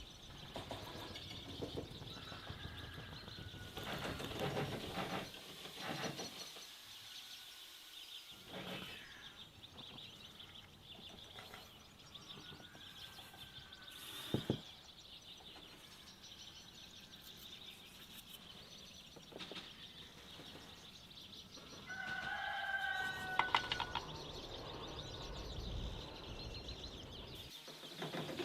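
Quiet outdoor ambience with birds chirping on and off, and a single sharp knock about halfway through.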